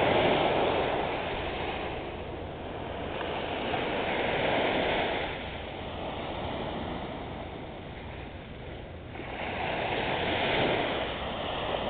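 Small surf breaking and washing up on a sandy beach, the rush of water swelling and fading three times.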